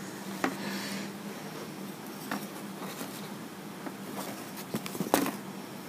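Light handling noises: a few small sharp clicks and soft rustles as a ribbon is pulled through a wooden ornament and a fabric ribbon is handled, over a faint steady hum.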